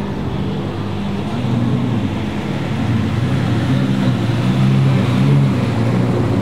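A high-performance car engine running at a low, steady idle. Its pitch wavers up and down in small blips of the throttle.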